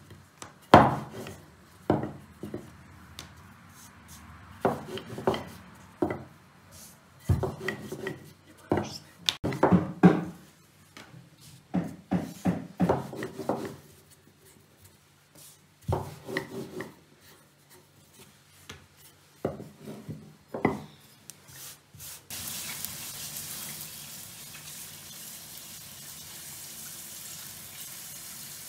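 Wooden rolling pin knocking and rolling on a wooden board as balls of noodle dough are flattened, in irregular clusters of knocks. About two-thirds of the way in this gives way to the steady hiss of a pot of soup at the boil.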